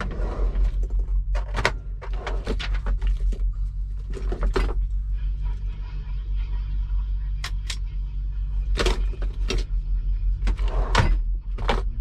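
Paper handling and small clicks and knocks inside a truck cab as a consignment note is held and written on, about a dozen short sharp sounds over a steady low hum.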